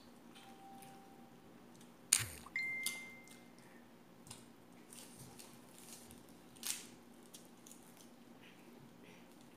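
Shrimp and crab being shelled by hand and chewed, with scattered small clicks and soft wet sounds. About two seconds in comes a sharp knock, then a brief ringing tone lasting about a second. A steady low hum runs underneath.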